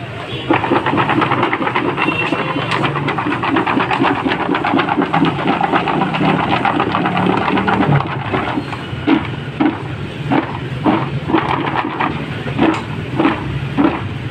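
Raw-cut potato fries tossed by hand in a plastic tub: a dense, rapid clatter and rustle of the sticks against each other and the tub. About halfway it turns into a rhythmic shaking, about two strokes a second.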